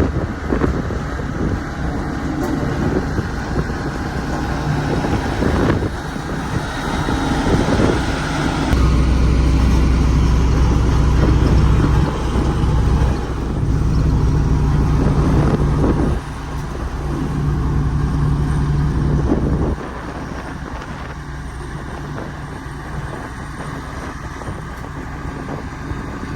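Sakai road roller's diesel engine running, with a heavier low drone from about nine seconds in until about twenty seconds in.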